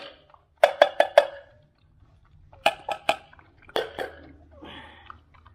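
Sharp metallic taps in quick runs of three or four, with a short ring: a can of dog food being knocked against a dish to empty out half its contents, with a brief scrape near the end.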